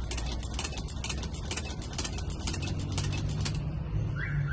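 Shoe-patcher sewing machine stitching a sneaker upper, its needle clicking steadily about four times a second and stopping about three and a half seconds in. A brief high chirp follows near the end.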